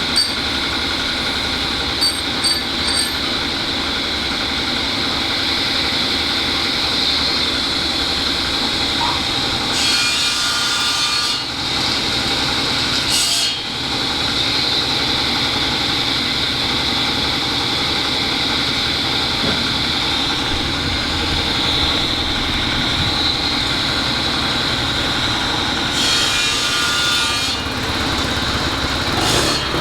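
Metalworking machinery in an ironworks shop running steadily with a constant high whine and hum. A few light clicks come early, and louder, hissing cutting-like stretches come about ten seconds in, briefly again around thirteen seconds, and near the end.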